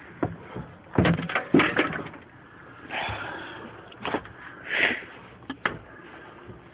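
Several sharp knocks and bangs at irregular intervals, the loudest about a second in and more near the four- and five-second marks, with a soft rushing noise between them.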